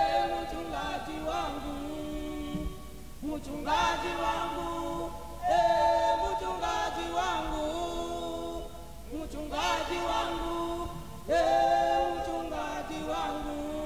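A group of voices sings a slow worship song together in long held phrases, with a new phrase swelling in every two to four seconds. There is no beat or percussion.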